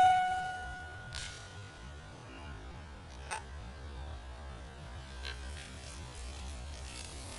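The ringing tail of a PCP air rifle shot dies away over about the first second, followed by a steady low rumble of wind on the microphone. A few faint clicks come about one and three seconds in.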